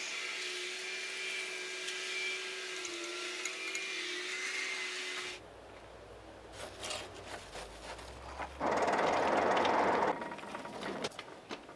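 Flywheel-driven forge blower whining steadily, its pitch wavering slightly, for about five seconds before it cuts off. Then come a low rumble and scattered crackles from the coal fire, with a loud rushing hiss lasting about a second and a half near the end.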